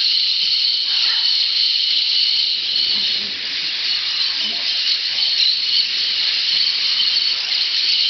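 A steady, high-pitched, hissing din of massed animal calls.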